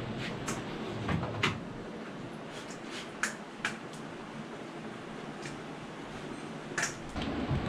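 Scattered light clicks and knocks of aluminium crutches being picked up and set down on a tiled floor, over a steady hiss.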